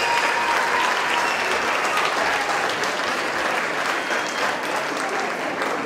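Audience applauding: dense, steady clapping from a large crowd that eases off a little toward the end.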